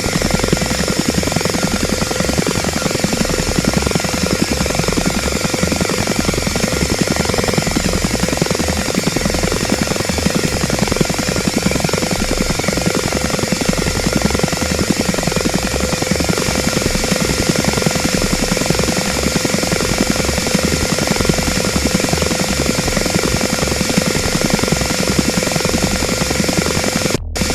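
Helicopter hovering sound effect built in FL Studio: a steady, fast rotor beat under a dense turbine rush with a steady whine. It cuts out for a moment just before the end.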